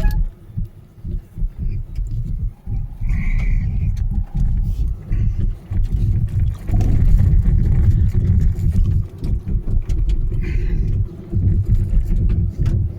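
Tata electric car driving, with a loud, uneven low rumble of road and wind noise and no engine note; two brief higher-pitched sounds come about three seconds and ten seconds in.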